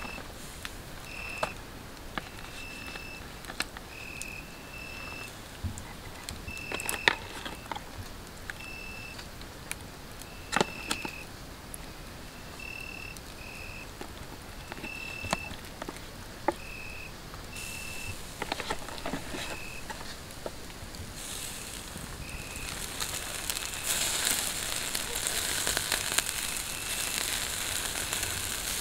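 Campfire embers crackling with scattered sharp pops under a wire grill of raw chicken pieces, with a short high chirp repeating every second or so. In the last several seconds a sizzling hiss rises as the chicken starts to cook over the coals.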